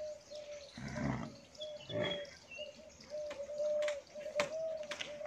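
Birds calling: one bird repeats a low note over and over, and a few higher chirps come in from other birds. Two short rushing noises sound about one and two seconds in.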